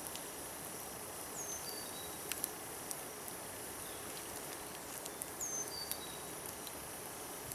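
Woodland ambience: a steady high insect drone, with a bird giving the same short falling whistled call twice, about four seconds apart, and a few light clicks.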